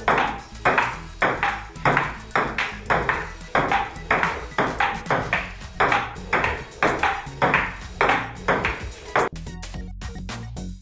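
Table tennis rally between a player and a table tennis robot: the ball clicks off the paddles and the table about twice a second in an even rhythm, over background music. The hits stop about nine seconds in, leaving only the music.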